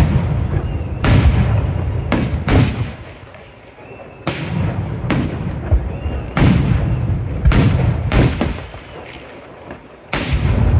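Aerial firework shells bursting in quick succession: about ten loud bangs, each followed by a low rumbling echo, with two short lulls between volleys.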